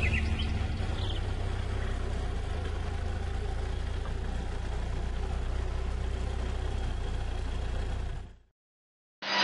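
Forklift engine running steadily with a low rumble; the sound fades out near the end.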